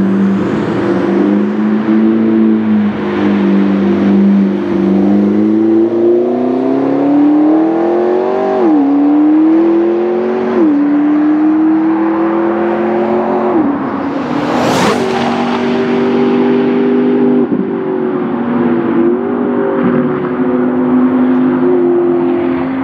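McLaren MP4-12C's twin-turbo V8 accelerating hard down the track, its note climbing in pitch and dropping sharply at each of three upshifts. It passes close by about fifteen seconds in with a brief sharp peak, then runs on steadily as it pulls away.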